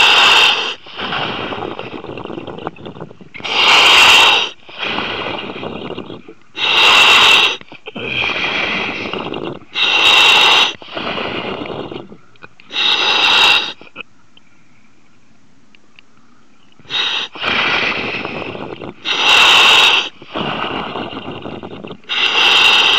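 A surface-supplied diver breathing steadily into his helmet, heard over the dive radio. Each breath comes about every three seconds as a loud hiss followed by a quieter, rougher stretch. There is a pause of about three seconds past the middle.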